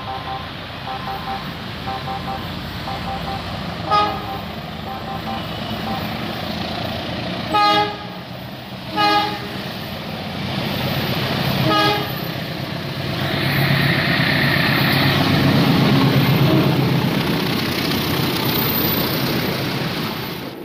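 A KAI diesel-electric locomotive sounds its multi-note horn in four short blasts as it approaches, then passes close by at speed with its passenger coaches rumbling and clattering on the rails, loudest a few seconds after the last blast. Early on a tone repeats about twice a second under the approach.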